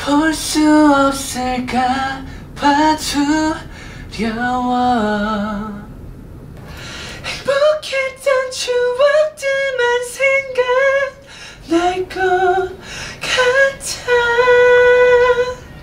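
A man singing solo into a studio microphone with no accompaniment, in short phrases separated by brief pauses. The later phrases climb higher, and he ends on one long held high note.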